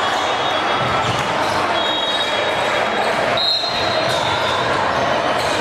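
Busy gym ambience in a large hall: constant chatter of players and spectators, with volleyballs bouncing on the hardwood floor. A couple of brief high squeaks come through.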